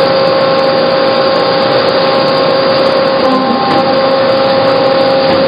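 Hyd-Mech H-16 automatic horizontal bandsaw running at the start of an automatic cutting cycle, a steady machine hum and whine with the blade going. The tone shifts briefly a little past three seconds in.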